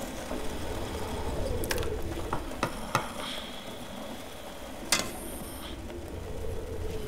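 A ladle stirring and scraping in a cooking pot and clinking against its rim as food is spooned into a bowl: several sharp clinks, the loudest about five seconds in, over a low steady hum.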